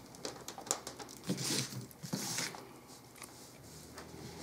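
Faint handling noises: a few light clicks in the first second, then two short rustling scrapes, as engine parts are picked up and moved.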